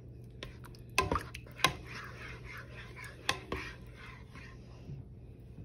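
A spoon stirring thick chili in a large pot, with wet sloshing and scraping. Several sharp knocks sound as the spoon hits the side of the pot, the loudest about a second in and near the middle.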